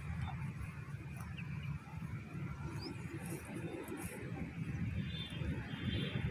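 A cow grazing: grass being bitten off and chewed in soft, irregular crunching clicks, over a low, uneven rumble.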